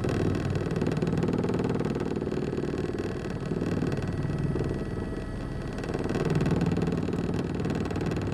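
Turbocharged four-cylinder engine of a 2005 World Rally Car running hard, its note wavering with the throttle and growing louder about six seconds in.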